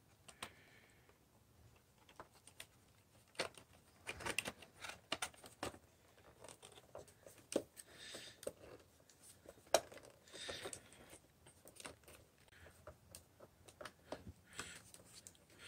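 Plastic case halves of an Emerson clock radio being fitted and pressed together by hand: faint, scattered clicks, knocks and brief scrapes of plastic on plastic.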